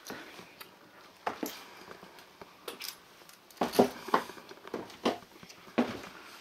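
Irregular footsteps and small knocks on wooden floorboards inside a small wooden sauna room, a handful of short thuds and clicks with the strongest just under four seconds in.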